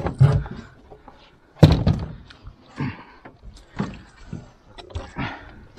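Several heavy thumps as catfish are handled and dropped into a plastic barrel and against the aluminium boat's deck. The loudest comes about a second and a half in.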